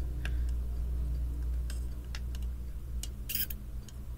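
Faint clicks and taps of a small plastic doll against a drinking glass as it is held underwater to fill, over a low steady hum.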